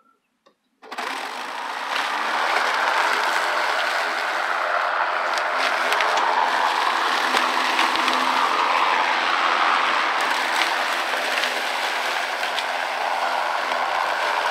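Ryobi cordless electric lawn mower switching on about a second in and running steadily, its blade cutting tall grass, with scattered sharp ticks through the steady motor-and-blade hum.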